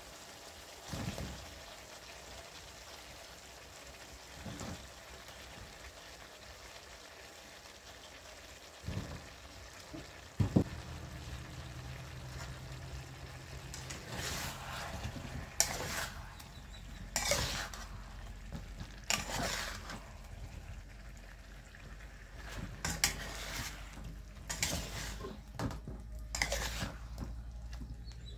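Metal spatula scraping and stirring chunks of jackfruit and pork in a steel wok, over a soft sizzle of the simmering sauce. The first third is quieter, with a few soft knocks; the repeated scraping strokes come in the second half, over a low steady hum.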